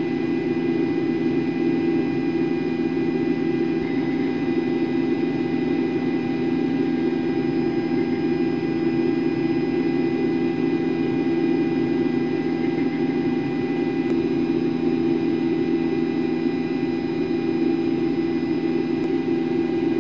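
Helicopter engine noise: a steady drone with a low hum and several constant high whining tones.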